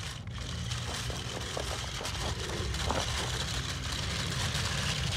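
Wind buffeting the microphone with a heavy low rumble, over a small electric RC crawler (JJRC Q69 1:18 six-wheel truck) driving across loose rubble, its tyres crunching on the stones with a few small clicks in the middle.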